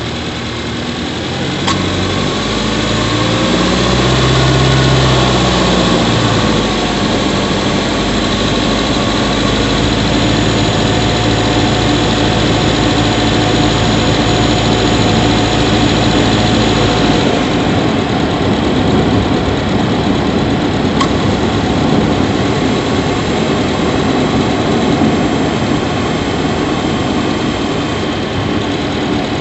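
Subaru Levorg 1.6GT-S's turbocharged 1.6-litre flat-four engine running, heard up close from inside the engine bay near the intake. Its pitch climbs over the first few seconds, then holds steady.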